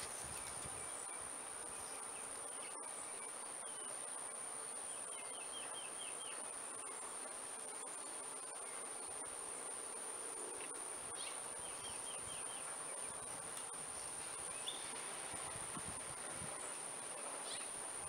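Outdoor ambience dominated by a steady, high-pitched insect drone. Twice, about a third of the way in and again past the middle, a bird gives a faint short run of about five quick chirps.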